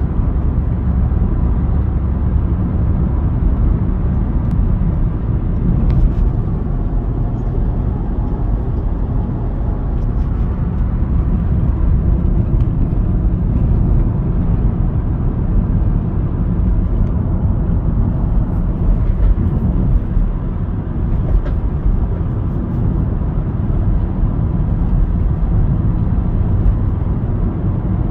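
Audi 3.0 TDI V6 diesel pulling steadily under load while towing a heavy trailer, heard from inside the cabin. The engine drone mixes with road noise at constant revs, with no change in pitch.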